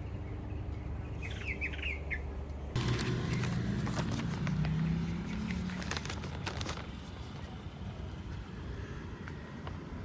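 Outdoor ambience over a steady low rumble: a bird gives a quick run of chirps about a second in. Then the sound switches abruptly to a louder scene with a low drone and scattered clatter that fade after a few seconds.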